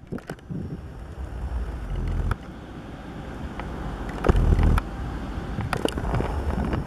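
Wind rumbling and buffeting on a handheld camera's microphone in uneven gusts, two of which break off sharply, with scattered clicks and knocks from handling the camera.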